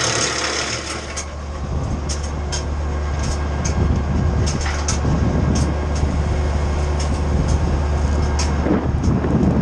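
Titan wood chipper running: a steady low engine drone with repeated sharp clicks and knocks of wood. A high hiss in the first second dies away.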